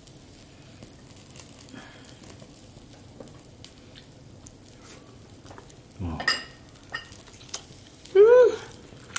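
Beef sizzling on a small tabletop charcoal grill, a steady quiet frying hiss with scattered small crackles. A soft knock comes about six seconds in, and near the end a person lets out a short hum of pleasure that rises and falls in pitch.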